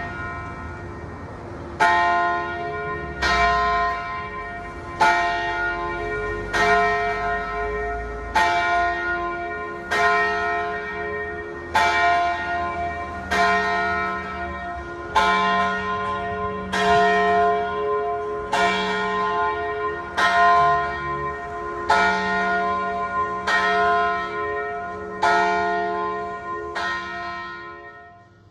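Church bell tolling at a steady pace, about one stroke every one and a half to two seconds, each stroke ringing on into the next. It dies away near the end.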